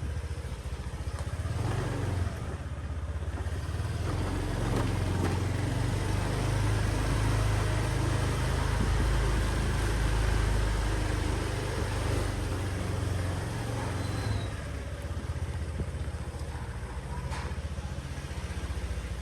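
Street traffic with motorbike engines running, a low rumble that grows louder for several seconds in the middle.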